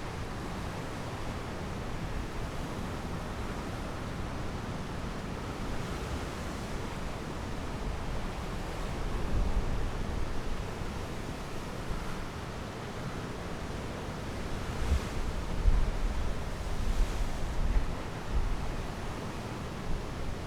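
Steady rush of wind and sea surf, with wind buffeting the microphone in stronger low gusts about nine seconds in and again from about fifteen to eighteen seconds.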